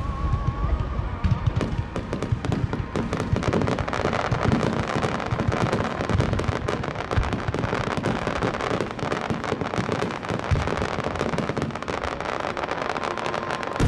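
Fireworks finale: many shells bursting at once in a continuous, dense crackling of rapid bangs and pops.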